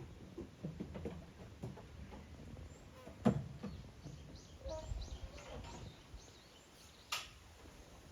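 Scattered knocks and rustling, with a sharp knock about three seconds in, and a small bird giving a quick run of short, high, falling chirps around the middle.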